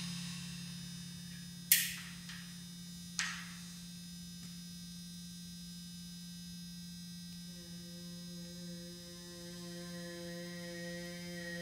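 Small Arduino-driven speaker resting on a timpani head plays a steady low electronic hum that the drum resonates. Two sharp clicks come about a second and a half apart early on, and past halfway a voice hummed into the drumhead joins at the same pitch, its overtones ringing out.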